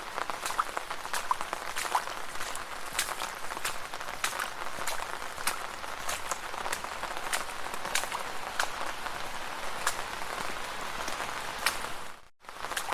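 Rain falling on a street: a steady hiss with many sharp individual drops ticking close by. The sound cuts out for a split second near the end and then resumes.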